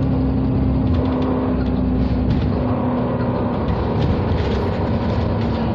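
Steady drone of a moving road vehicle heard from inside: engine hum and road noise. A low steady hum fades out about three and a half seconds in and returns near the end.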